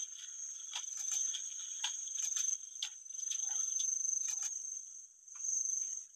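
Steady high-pitched insect buzzing, like crickets, with many short chirps and clicks scattered over it; the buzzing dips briefly about five seconds in.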